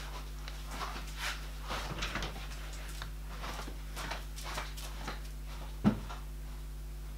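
Faint footsteps and light clicks on a tiled floor as a person walks out and a dog follows, over a steady electrical hum, with one louder short knock about six seconds in.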